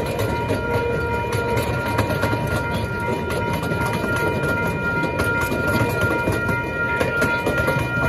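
Miniature park railroad cars rolling past a grade crossing, wheels rumbling and clicking on the rails, with a steady high ringing from the lit crossing signal's bell over it.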